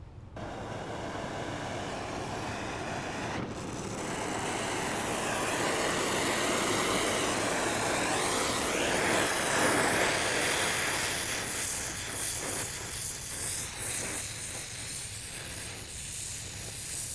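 Oxy-acetylene welding torch with a number 0 tip, its flame roaring steadily with the heat turned up to melt through the steel. The roar grows louder a few seconds in and eases off near the end.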